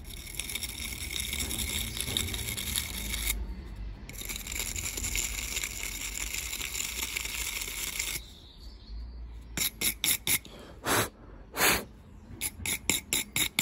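Spark plug scrubbed against a hand wire brush to clean the carbon off it. There is continuous rapid scratching with a brief pause about three seconds in, then from about eight seconds in a string of separate short brush strokes that come faster toward the end.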